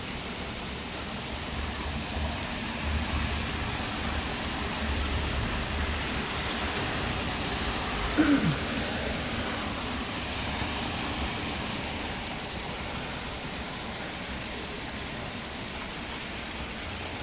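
Heavy rain pouring steadily, with a short sound falling in pitch about eight seconds in.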